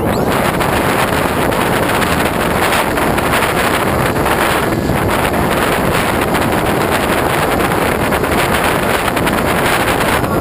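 Loud, steady rush of wind over a GoPro camera mounted on a Hobbyking Bixler RC model plane in flight.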